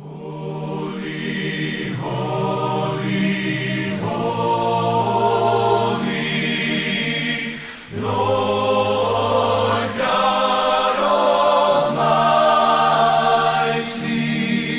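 Choral music: voices singing slow, long-held chords that change about every two seconds.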